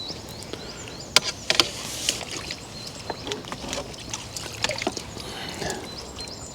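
Scattered light clicks and small knocks with water trickling, from handling fishing tackle and a freshly landed small carp.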